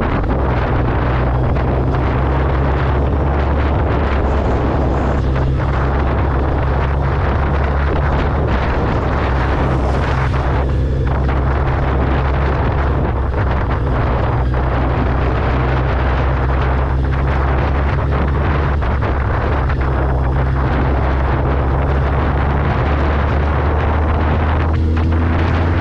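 Suzuki Hayabusa's inline-four engine running steadily while riding at road speed, under heavy wind rushing over the microphone. The engine note climbs a little near the end.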